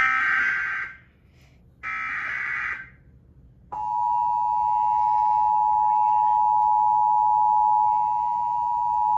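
Emergency Alert System broadcast: two short SAME header data bursts of about a second each, then from about four seconds in the steady two-tone EAS attention signal, the tones that announce an emergency alert.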